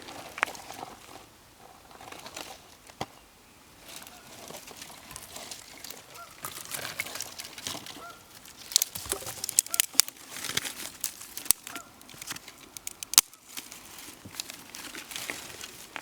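Irregular sharp snaps and crackles with rustling as twigs are handled and fed to a campfire, busiest in the middle stretch. A few short goose honks sound now and then.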